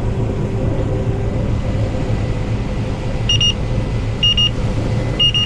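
Three short, high electronic warning beeps about a second apart from a farm machine's cab alarm, over the steady rumble of its running engine. The beeping signals that the machine is in the mud.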